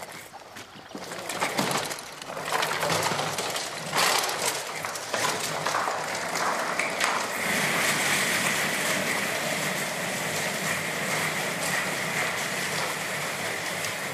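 Remotec Cobra bomb-disposal robot's electric motors running, a rushing mechanical noise with a few knocks, joined about halfway through by a steady whine.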